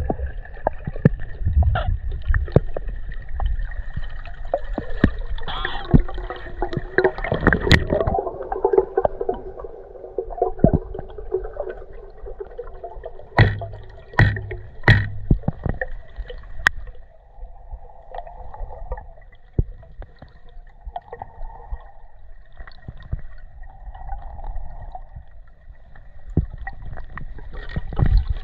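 Underwater gurgling and bubbling, broken by many scattered clicks and knocks, with three sharp knocks in quick succession about halfway through.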